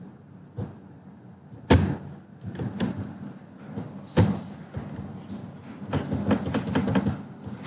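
Computer keyboard and mouse clicking on a desk, with two dull thumps about two and a half seconds apart, the first nearly two seconds in.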